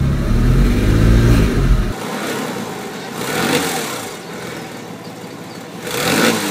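Porsche Boxster flat-six engine running with a flapping exhaust noise. It is heard first as a deep rumble inside the cabin, then from behind the car at the twin tailpipes, where it is revved twice. The flapping comes from the header-to-catalytic-converter joint: its nuts have rusted away and the gasket flaps in the escaping exhaust gas.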